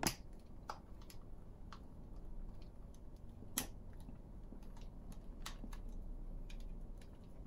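Scattered small clicks and taps of hard model parts being handled while a small screwdriver tightens a machine screw into the arm assembly, the sharpest click at the very start and another about halfway through.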